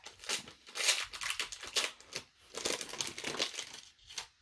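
Wrapper of a 2020 Donruss baseball card pack crinkling and tearing as it is pulled open by hand, in quick irregular rustles that stop just before the end.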